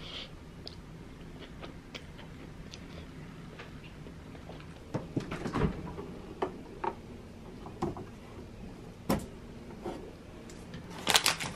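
Light knocks and clicks of things being handled, over a low steady hum, with a sharper knock about nine seconds in and a quick run of clicks near the end.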